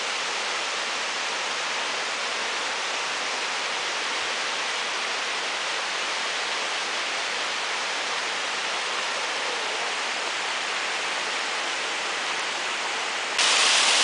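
A waterfall cascading down rock, heard as a steady rushing of water. About half a second before the end it abruptly becomes louder and brighter, the falls heard close up.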